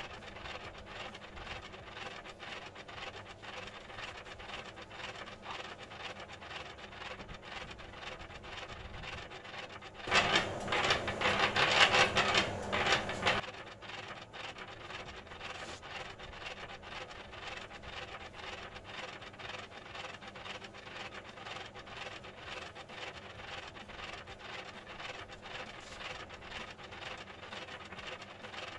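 Continuous rubbing and scraping from mortar and brick work, with a louder, harsher stretch of scraping lasting about three seconds, around ten seconds in.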